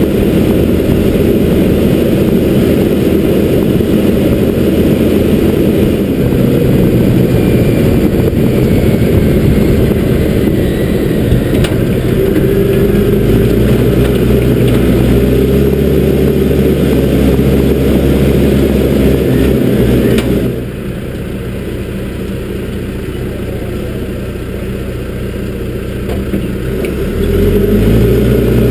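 John Deere backhoe loader's diesel engine running hard as the machine drives along. About two-thirds through it drops to a quieter, lower note, then speeds back up near the end.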